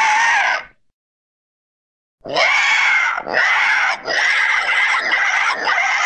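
Terror bird call sound effect: a loud, rasping bird-like cry that cuts off about half a second in. After a gap of over a second, a longer cry comes in four joined pulses and runs on past the end.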